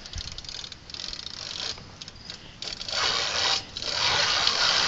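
BMX rear hub freewheel ratcheting as the wheel spins, a rapid run of pawl clicks that swells into louder, denser buzzing in two spells from a little past halfway.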